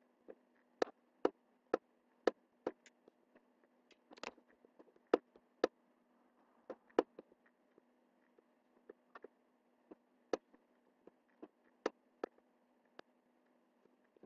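Computer mouse button clicking at irregular intervals, about one or two sharp clicks a second, some louder than others, as paint strokes are made, over a faint steady hum.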